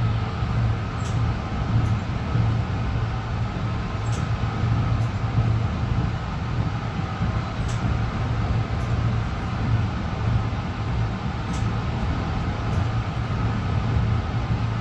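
An LIRR M3 electric multiple-unit railcar running, heard from inside the car: a steady low hum and rumble with a faint higher tone, and a few faint light clicks.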